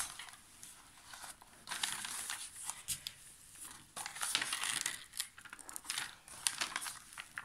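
Crinkling and rustling of a diamond-painting canvas and its protective cover sheet being handled and smoothed flat, in two bursts with a few sharp crackles, the second burst longer.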